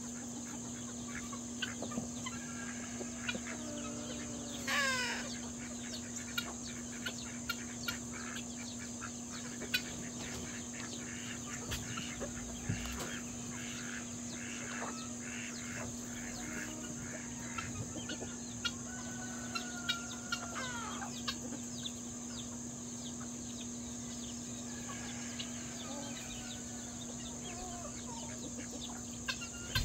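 Backyard flock of chickens, turkeys and guinea fowl feeding, with scattered clucks and short calls, over a steady high drone. About five seconds in one loud call falls in pitch, and another falling call comes around twenty seconds in.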